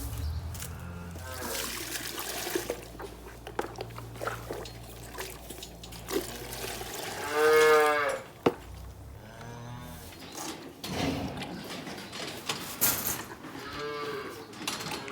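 Dairy calves mooing: one loud call rising and falling about halfway through, with several fainter calls before and after. Scattered knocks and clatter, and a low hum that stops about halfway.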